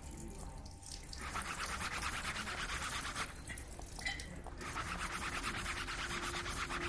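Fast back-and-forth scrubbing of a cutting board with a lemon half, rubbing at a yellow stain that won't come out. The strokes start about a second in, stop briefly near the middle, then resume.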